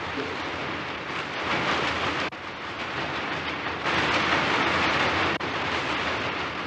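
Textile mill spinning machinery running, rows of spindles and bobbins making a dense, steady whirring clatter that gets louder about four seconds in.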